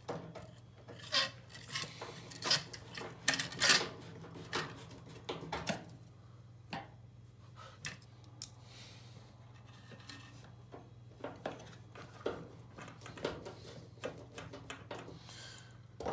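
Small hand screwdriver turning screws into the plastic frame of a washing machine's filter access opening: a run of short clicks and scrapes, dense for the first several seconds, then sparser.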